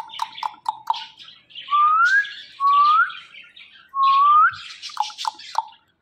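Indian ringneck parakeet calling: a quick run of short chirps, then three rising whistled calls with a harsh edge, then a few more short chirps near the end.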